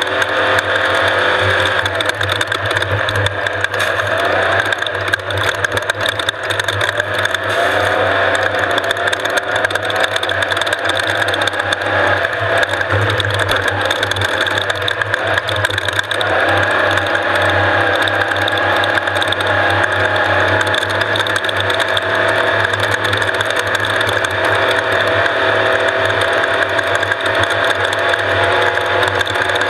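Off-road race vehicle's engine running hard over rough desert terrain, its pitch rising and falling a few times, under a steady mechanical rattle.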